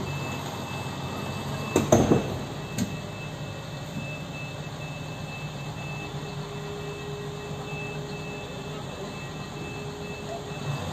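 Crawler crane's diesel engine running steadily, with a few sharp metallic clanks about two and three seconds in.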